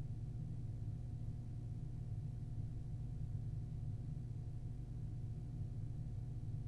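Steady low electrical hum with a faint hiss: the room tone of an empty room on a recording system, with no events.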